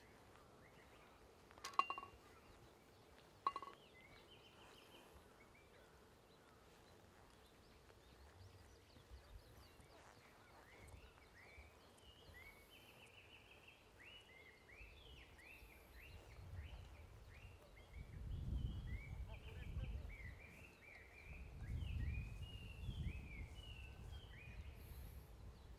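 Outdoor birdsong: a bird repeating many short, quick chirps through the second half. Near the start there are two sharp clicks about a second and a half apart, and a low rumble swells twice near the end.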